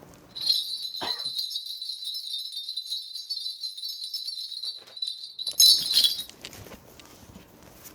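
A Korean shaman's cluster of small ritual bells shaken in a continuous jingle for about five seconds, with a louder shake near the end before it dies away, as she calls up her reading.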